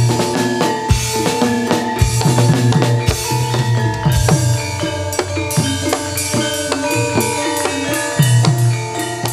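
Live gamelan ensemble playing jaran kepang dance music: bronze metallophones and gongs ringing in interlocking notes over a steady drum beat with deep drum strokes.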